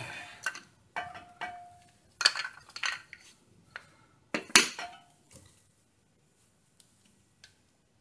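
Metal clinks and clanks as the last caliper bolt is drawn out and the Brembo front brake caliper is worked off its mount. A few of the knocks ring briefly, and the loudest clank comes about four and a half seconds in.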